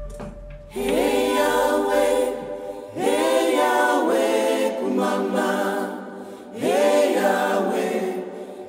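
Unaccompanied choir singing in three phrases, each starting with a rising slide into the note and lasting about two seconds.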